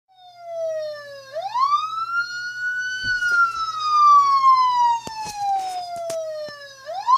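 Police siren wail played back from a video through a speaker. The pitch dips, climbs quickly about a second in, falls slowly for several seconds, then climbs again near the end. A few short knocks come in the middle.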